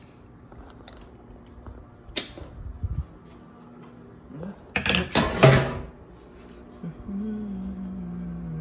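Kitchen handling sounds: a few clicks, then a loud clatter of dishes going into a stainless steel sink about five seconds in. Near the end a microwave oven starts humming steadily, its pitch sagging slightly.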